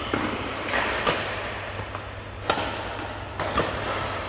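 Badminton rackets striking shuttlecocks during rallies: about five sharp hits at irregular intervals, over a low steady hum.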